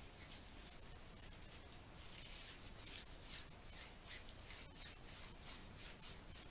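Fresh fireweed leaves being rolled and rubbed between the palms: a faint rustle that grows stronger about two seconds in, with about three strokes a second. Rolling the leaves breaks their cells so that they release juice for fermentation.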